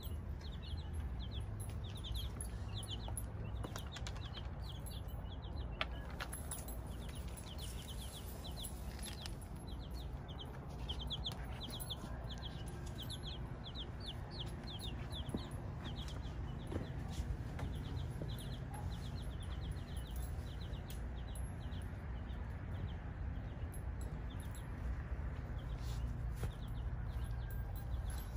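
Baby chicks peeping: short, high, quick notes repeated in runs.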